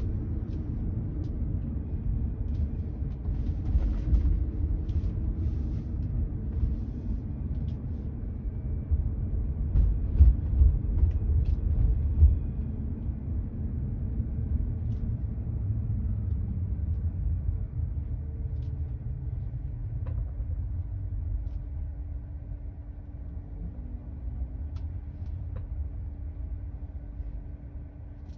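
Low road rumble and tyre noise inside the cabin of a Tesla Model 3, with no engine sound, as it drives slowly through town. The rumble is loudest about ten to twelve seconds in and eases off near the end as the car slows. A faint steady hum joins about halfway through.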